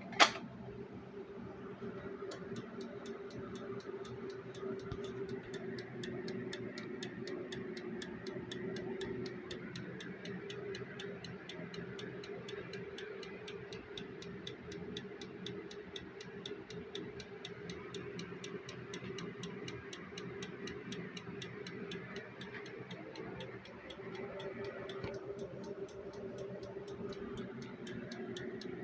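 A Simplex manual fire alarm pull station is pulled with one sharp snap, then the activated alarm circuit ticks steadily and evenly over a faint hum, a silent alarm test with no horn sounding.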